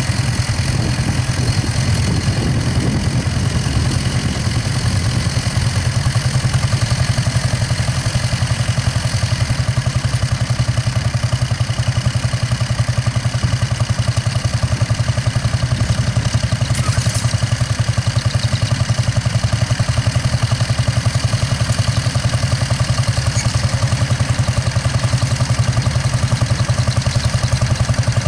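Vintage Hanomag tractor's engine running steadily under load as it pulls a plough through the field, with an even, rapid firing beat.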